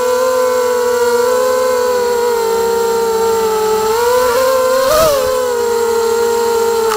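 Motors of a 250-class FPV racing quadcopter whining at a steady pitch, heard from the camera on board: four Elite 2204-2300kV brushless motors turning three-blade 5x3 propellers. About five seconds in the pitch rises briefly and there is a short knock.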